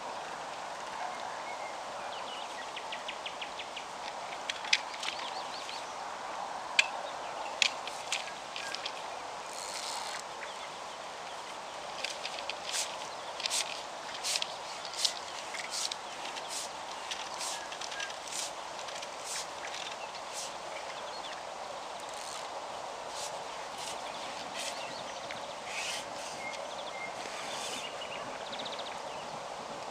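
Songbirds singing: many short, sharp high notes and several rapid trills, over a steady background hiss.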